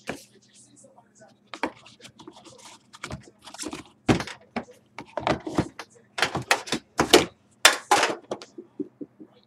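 Trading cards and their packaging being handled: a run of short knocks, clicks and rustles, sparse at first and busier and louder from about four seconds in.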